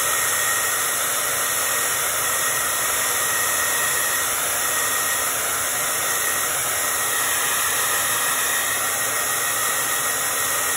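Handheld hair dryer running steadily, its fan blowing an even rushing hiss with a faint high whine, aimed at wet paint to dry it.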